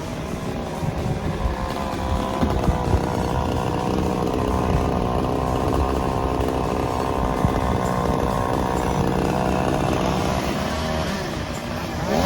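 Chainsaw running at high revs, holding a steady pitch for most of the time, then changing pitch near the end.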